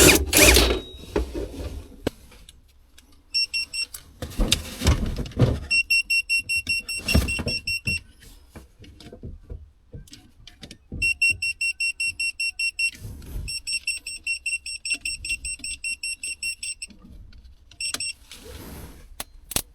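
Rapid high-pitched electrical chirping in runs of several seconds at a breaker panel, with knocks from handling in between. The electrician takes this squeak for the sign of a loose connection where wires are doubled up on the breakers' upper terminals.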